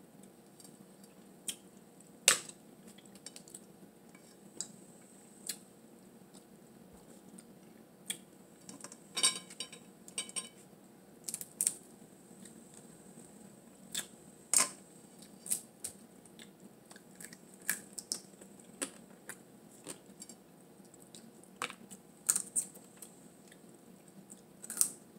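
Boiled blue crab shells being cracked and picked apart by hand: irregular sharp cracks and clicks, a few louder snaps among many small ones.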